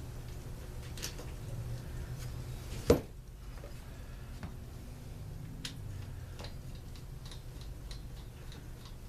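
Light clicks and taps of small metal parts and tools being handled during small-engine work, with one sharp knock about three seconds in.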